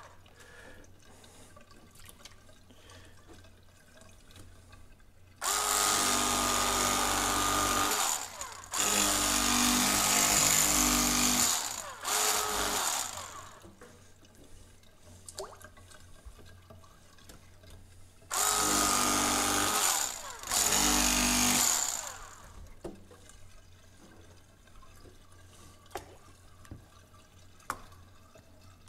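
Electric fillet knife running in about five short bursts of one to three seconds each, with a steady motor whine, as crappie fillets are cut and the rib sections trimmed out. Quieter stretches fall between the bursts.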